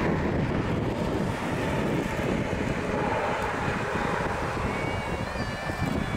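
Airbus A321neo's CFM LEAP-1A turbofan engines running steadily as the airliner rolls out on the runway after touchdown, with wind noise on the microphone.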